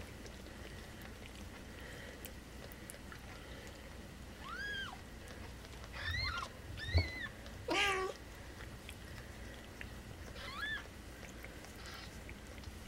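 Newborn kittens mewing: about six short, high-pitched squeaks in small clusters, with one longer cry that falls in pitch about two-thirds in. A soft thump comes just before that cry.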